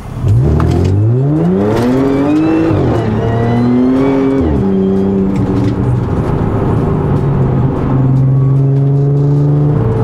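Supercharged 3.0 V6 of a tuned Audi S4, heard from inside the cabin, at hard acceleration from a standstill. The revs climb steeply, the gearbox shifts up twice about three and four and a half seconds in, and the engine then pulls on steadily in a higher gear, a thin high whine rising with the revs early on.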